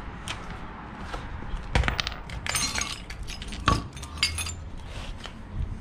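Steel wrenches and sockets clinking and clattering against each other on a concrete floor as a hand rummages through a pile of tools, hunting for the right-size socket. The sharp, ringing clanks come in a cluster about two seconds in and again between three and a half and four and a half seconds in.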